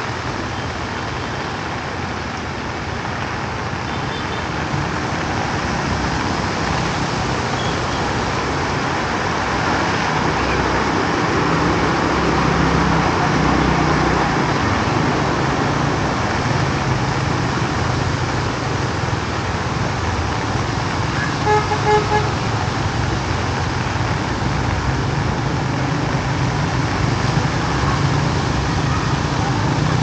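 Steady hiss of heavy rain mixed with road traffic and running engines. About 22 seconds in, a vehicle horn gives a quick series of short beeps.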